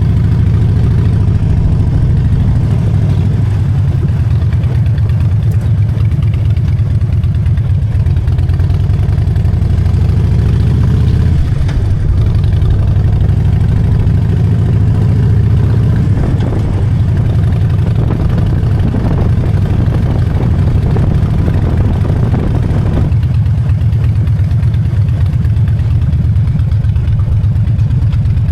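Harley-Davidson Dyna Street Bob's V-twin engine running, its note changing several times.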